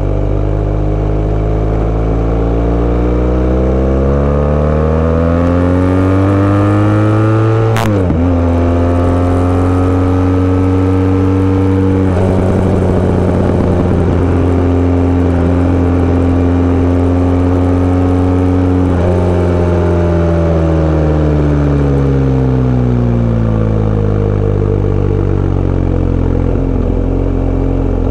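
Sport bike engine pulling hard with revs climbing, then a sharp click and a sudden drop in pitch about eight seconds in as it shifts up. It holds a steady speed for a while, and revs fall away about twenty seconds in as the bike slows, before it steadies again.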